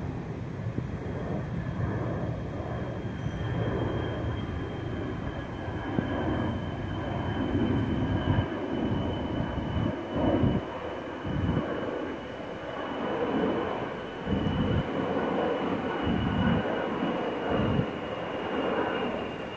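Jet engines of an eight-engine B-52 bomber passing overhead: a steady rumble with a thin whine on top that slowly sinks in pitch. Wind gusts buffet the microphone from about the middle on.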